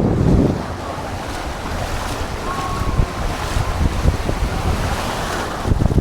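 Ocean surf washing onto the beach, with wind buffeting the microphone, strongest in the first half second.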